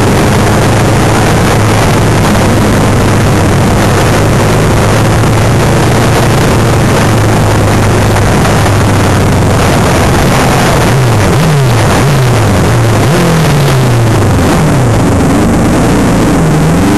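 Grasstrack racing sidecar's engine heard onboard, running hard at a steady high pitch. From about two-thirds of the way in, the revs repeatedly rise and fall as the throttle is opened and shut while the outfit slows toward the track exit.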